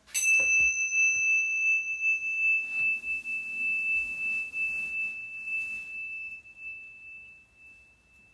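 A small meditation bell struck once, ringing with a clear high tone that fades slowly over about eight seconds. It marks the end of the journalling time. Faint rustles of movement sound under it.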